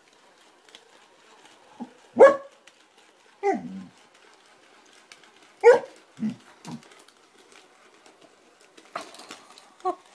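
Several short bark-like yips, one to two seconds apart, with one falling whine among them.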